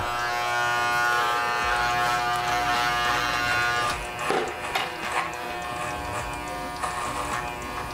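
Corded electric hair clippers running with a steady buzz while cutting hair at the back of a mannequin head. The buzz drops slightly about four seconds in.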